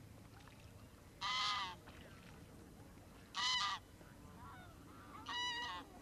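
Three short, pitched calls from waterfowl, each about half a second long and about two seconds apart.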